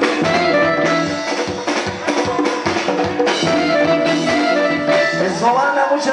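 Rock band playing live through a PA: drum kit, electric guitars and bass. Near the end the music stops and the crowd starts cheering and whooping.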